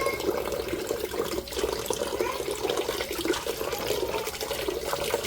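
Kitchen tap running steadily into the sink, with water splashing as a chicken is washed under it.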